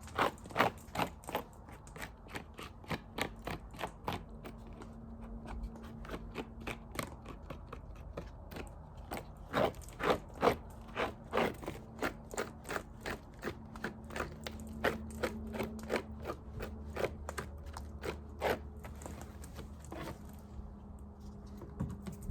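Beehive frames and comb being handled and scraped: a long run of sharp crunching scrapes and clicks, coming in quick bursts, over a faint steady low hum.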